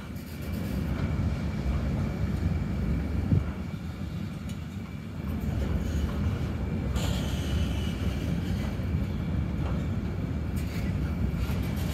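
Freight train of enclosed double-deck car-carrier wagons rolling past, a steady low rumble of wheels on rail. There is a single knock about three seconds in and a brief high squeal about seven seconds in.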